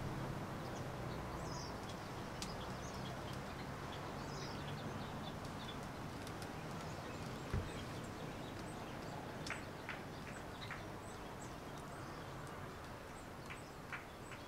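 Quiet background with small birds chirping intermittently, a single soft thump about halfway through, and a few light taps near the end.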